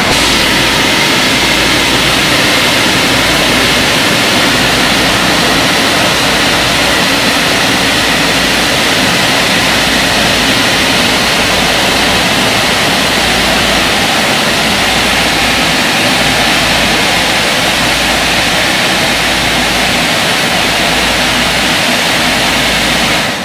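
Aquarama rollover car wash machine running over a car: a loud, steady rushing noise.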